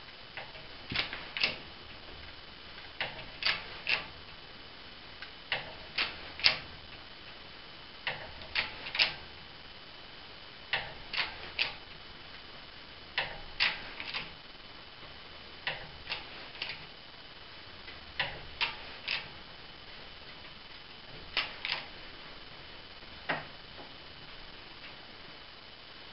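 Hydraulic shop press's bottle-jack pump handle being worked: sharp metallic clicks in clusters of two or three, a cluster about every two and a half seconds.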